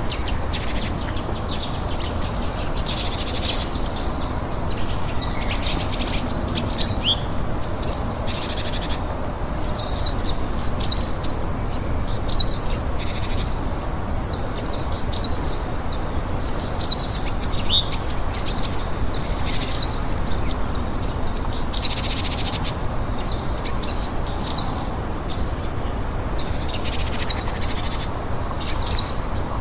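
Birds singing with many short, quick, falling chirps over a steady hiss of rain.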